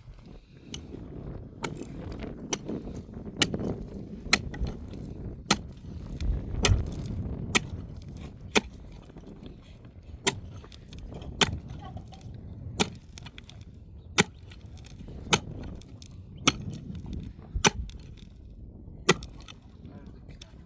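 A series of sharp blows at an even pace, about one a second, over a low background rumble, as of a hand tool striking again and again.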